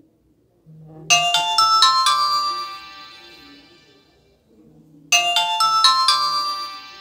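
Nokia 100 mobile phone ringtone playing through the phone's small speaker: a short chiming phrase of a few quick notes that ring on and fade, heard twice about four seconds apart.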